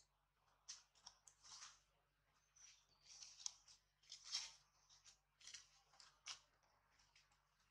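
Faint, scattered crackling of dry fallen leaves as macaques shift and walk on them, in short irregular bursts.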